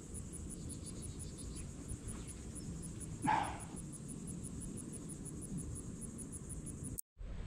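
Insects chirping steadily in a high, even pulse, about five a second, over faint outdoor ambience, with one short animal call about three seconds in. The sound cuts off suddenly near the end.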